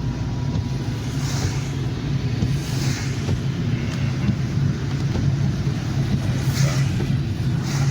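Car engine and road noise heard from inside the cabin while driving: a steady low rumble with a few brief swishes.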